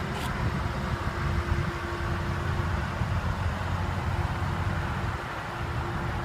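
Car engine idling steadily: a low, even hum with a faint steady tone above it.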